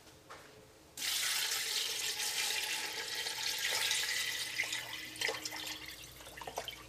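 Water pouring in a steady stream into a large stainless steel stockpot full of chicken pieces and vegetables, filling it with about two litres of water for chicken stock. The pour starts about a second in, with a few splashes, and tapers off near the end.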